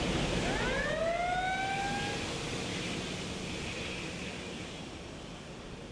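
A pitched tone with a few overtones rises and then levels off over about the first two seconds, above a steady hiss that slowly fades away.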